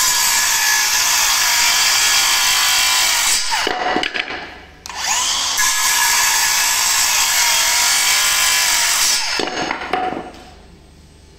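Milwaukee M18 Fuel 2730-20 brushless cordless circular saw cutting a wooden board in two passes. Each pass is about four seconds of steady cutting that ends with the blade winding down in a falling whine, once about three and a half seconds in and again near the end.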